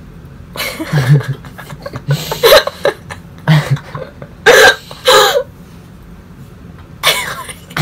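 A young woman laughing in about five short bursts.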